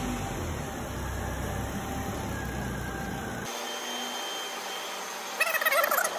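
Volvo S80 2.5 turbo's five-cylinder engine idling steadily just after start-up. The engine sound cuts off abruptly about three and a half seconds in, leaving quieter room noise.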